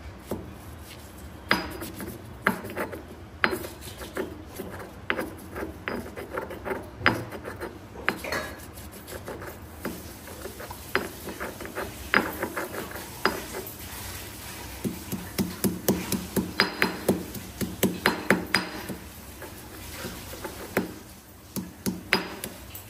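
Stone pestle pounding and grinding mint leaves and a green chilli in a stone mortar: irregular knocks of stone on stone with some rubbing, and a quick run of regular strikes about two-thirds of the way through.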